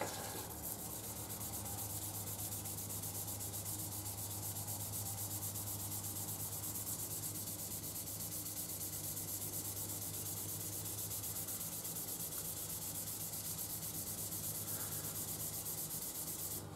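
Steady back-and-forth sanding of a front fork tube on a Honda CB750F2, with rapid even strokes that stop suddenly near the end. The tube is being smoothed where a rough spot can still be felt.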